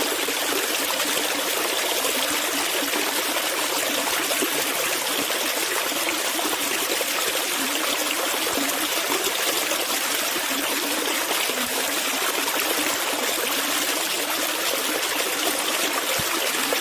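Stream water flowing steadily, a continuous trickling rush with no breaks.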